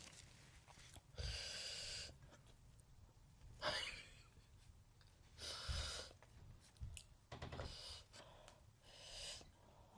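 A person's audible breathing close to the microphone while eating: about five short, breathy gasps or exhalations, one every second or two.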